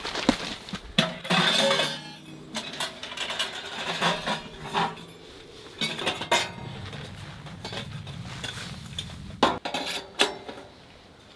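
Sporadic clinks, knocks and clatter of hard objects being handled and set down, with a busier, ringing clatter about a second in.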